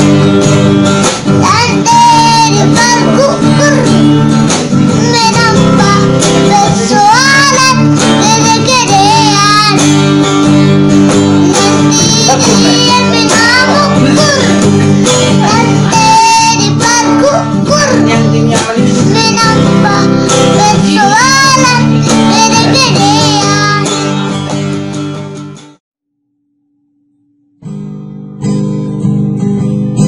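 A young boy singing a song to a strummed acoustic guitar. The singing and guitar cut off about 26 seconds in, and after two seconds of silence acoustic guitar strumming starts again.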